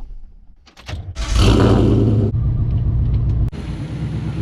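A car engine starts about a second in, flaring loudly for a moment, then settles into a steady low idle. A steady hiss joins about halfway through.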